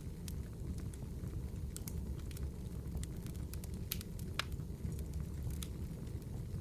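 Wood fire crackling: irregular sharp pops and snaps over a steady low rumble, with the strongest pops about four seconds in.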